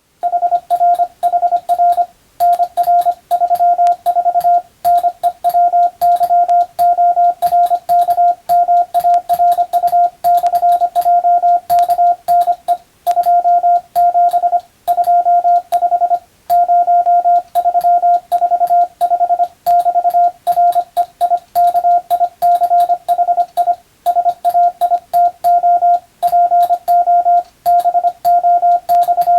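Morse code (CW) tone of about 700 Hz keyed rapidly in dots and dashes, with short pauses between characters and words, sent as code-receiving practice.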